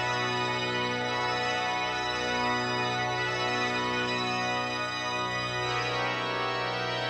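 Music: an organ holds sustained chords without drums, moving to a new chord about six seconds in.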